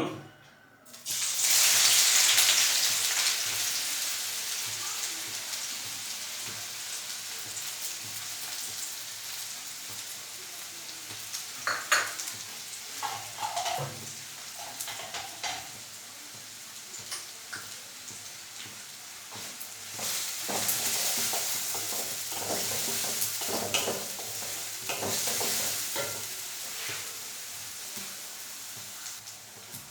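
Onions dropped into hot mustard oil in a pan: a sudden loud sizzle about a second in that settles into a steady frying sizzle. The onions are stirred, with occasional clicks and scrapes of the spatula against the pan.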